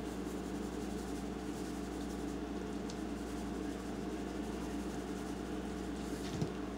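Steady background hum with faint, soft rattles of a spice shaker being shaken over food, and a short soft knock near the end.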